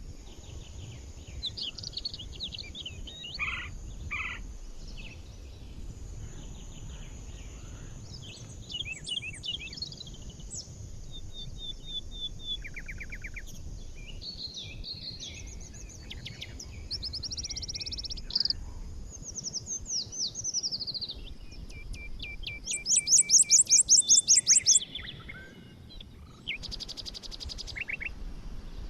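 Several songbirds singing and chirping in a mixed chorus of varied short calls, glides and trills, in a synthesized forest soundscape. The loudest part is a fast, bright trill of repeated high notes a little past two-thirds of the way through. A low steady rumble of background noise runs underneath.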